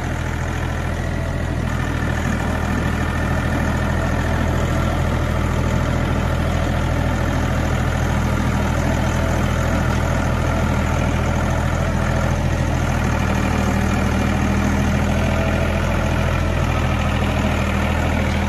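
Kioti compact tractor's diesel engine running steadily as the hydrostatic-drive tractor travels along at working throttle.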